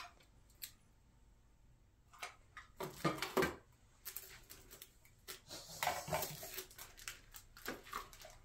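Paper and plastic packaging rustling and crinkling as items are handled and pulled out of a paper-lined gift bucket, in irregular bursts that start about two seconds in, after a couple of light clicks.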